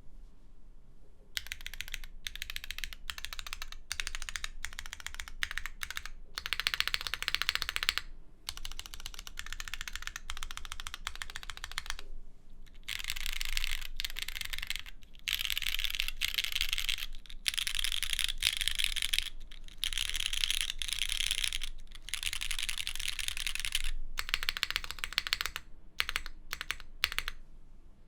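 Continuous typing on a mechanical keyboard with linear Cherry MX Black switches, diamond-polished, stem-lubed and filmed, on an aluminium plate with GMK keycaps. Fast runs of keystrokes come in bursts of a second or two with short pauses between.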